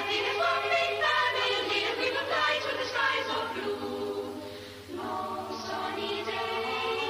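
Film score of wordless choir singing held, sliding notes, fading briefly about four seconds in and swelling again just before five seconds.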